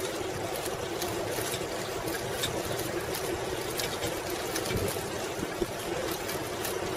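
Steady rolling noise of a 1995 Schwinn Classic Cruiser's tyres on a paved path, with frequent small rattles and clicks from the bike.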